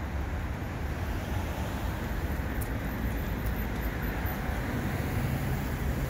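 Steady low rumbling background noise, with a faint low hum coming in about five seconds in.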